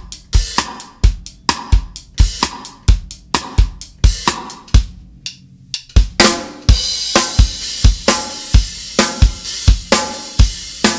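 Acoustic drum kit played at a slow, steady tempo: kick and snare strokes with hi-hat, about three strokes a second, as a punk-rock beat is worked through slowly. Just before the middle there is a brief break, then the cymbals open up and keep ringing over the same beat.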